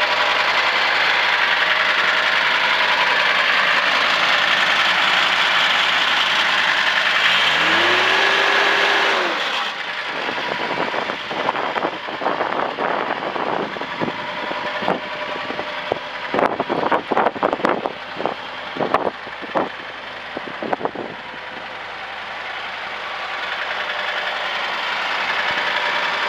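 John Deere 328 skid steer's diesel engine running, with a rising whine about eight seconds in before the sound drops off sharply. A string of sharp metallic knocks and clanks follows, and the engine noise builds again near the end.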